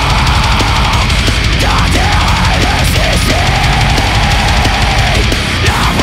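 Blackened death metal recording: distorted guitars and drum kit playing loud and dense without a break, with a pitched line bending up and down over the top.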